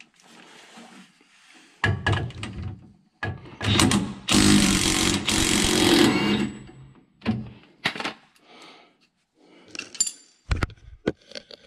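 A power tool runs at the bolt on the front sway bar's arm: a short burst, then a steady run of about three seconds. Sharp metal knocks and clinks follow near the end.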